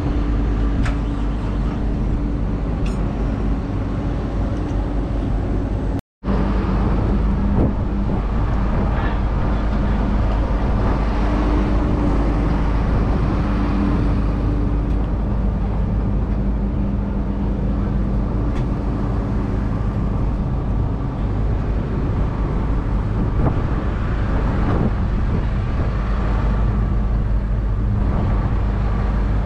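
Diesel tractor engines running steadily, with strong wind rumble on the microphone; the sound drops out for a moment about six seconds in.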